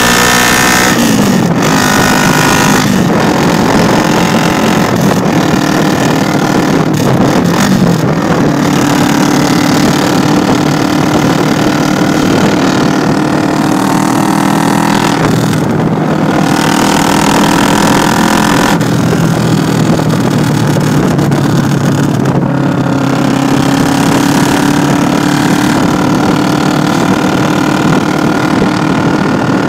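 2006 Kawasaki Vulcan 500 LTD's 498 cc parallel-twin engine running through a straight-pipe exhaust, loud and meaty, its engine speed rising and falling several times as it is revved and let back down.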